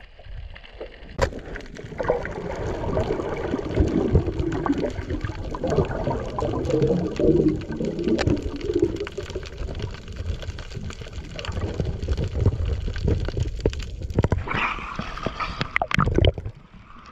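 Underwater sound heard through an action camera's housing: water rushing and gurgling, with scattered sharp clicks and knocks. Near the end the sound changes as the camera reaches the surface and the water splashes.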